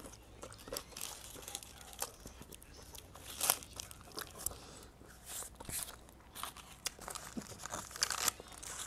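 Paper and plastic food wrapping crinkling and tearing as it is handled and unwrapped, a run of irregular sharp crackles, the sharpest about three and a half seconds in and again near the end.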